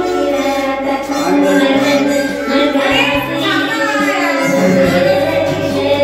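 A woman singing a melody into a handheld microphone, her voice amplified, over a steady low hum.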